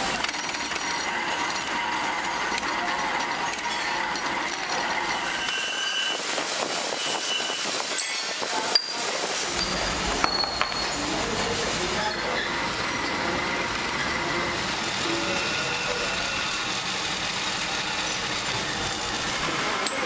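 Machine tools cutting steel bolt blanks: a milling cutter running through the metal with a steady mechanical clatter and high squealing tones. A few sharp clinks come around nine to eleven seconds in, and a lower rumble joins about halfway.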